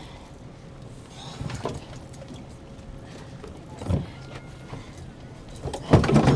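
A few knocks and thumps of handling on a boat's deck, the loudest near the end, over a steady low hum.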